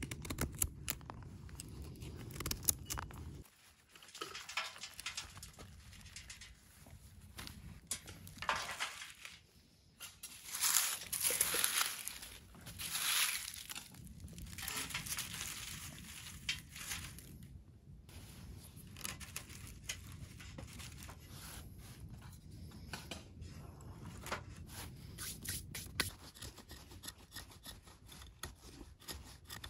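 A knife blade shaving and scraping dry wood into curls and fine tinder shavings in short, irregular strokes. A stretch of louder rustling and crinkling comes about ten to fourteen seconds in.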